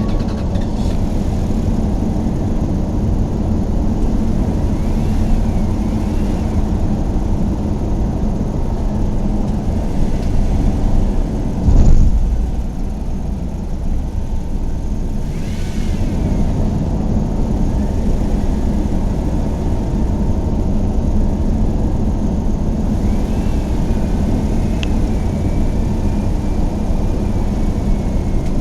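A vehicle engine running steadily with a low rumble, with one loud thump about twelve seconds in.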